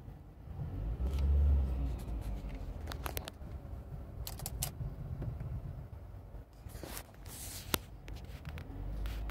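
2001 Honda Civic's four-cylinder engine idling at about 1000 rpm, a steady low rumble heard from inside the cabin, whose exhaust note the owner presents as a problem. A few sharp clicks and handling noises come a third of the way in, around the middle and near the end.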